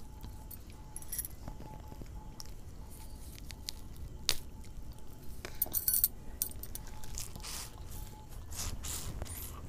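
Scattered small clicks, crinkles and mouth sounds as frozen cola ice pops in thin plastic tube packets are opened and sucked on. There is a sharper click about four seconds in and a short cluster of crackles around six seconds.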